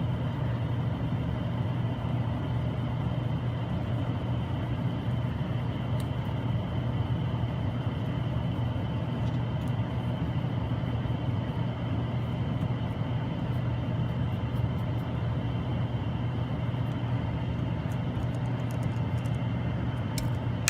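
Steady low mechanical hum of running machinery, with a faint high whine above it and a few faint ticks.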